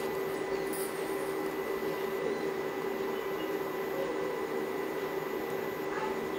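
Steady room hum with one constant tone, with a few faint ticks from a super glue bottle and bamboo pieces being handled.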